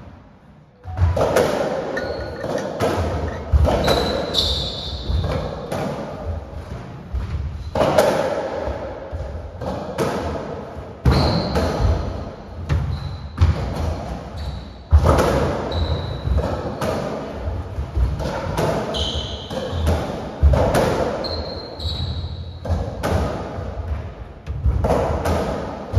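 Racketball rally on a squash court: the ball struck by racquets and hitting the walls and floor about every second, with short high squeaks of court shoes on the wooden floor between shots. The rally starts about a second in.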